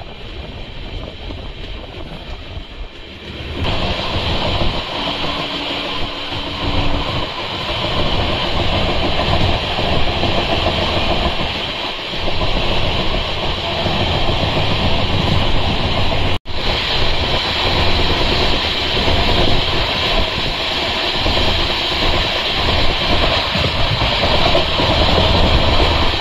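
Running noise of a Shatabdi Express at speed, heard from inside the coach: a steady rumble and rattle that grows louder about four seconds in, with a split-second break about sixteen seconds in.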